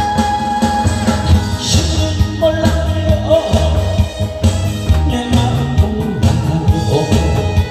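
A song with a steady drum beat, played over a PA, with live cymbals and drums struck along and a man singing into a handheld microphone.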